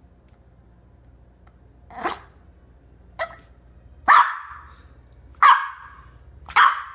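French Bulldog puppy barking in short single barks, five in all about a second apart, with the last three the loudest. The barks come from the puppy being startled by her own hiccups.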